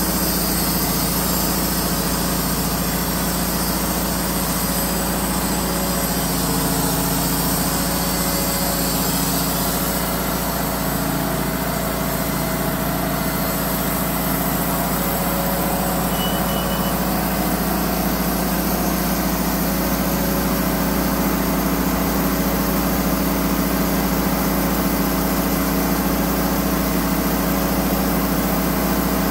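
Wood-Mizer LT15 portable band sawmill's gas engine running steadily, driving the band blade as the saw head is pushed along a pine log and back.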